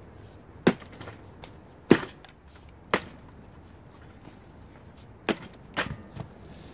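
A knife blade chopping into a pumpkin: about five sharp blows, irregularly spaced, with a pause of a couple of seconds before the last two.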